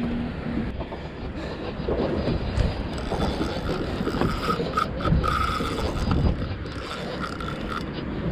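Fishing reel whirring and clicking in short bursts while a hooked cobia is fought, its drag just backed off. A steady rushing noise lies underneath.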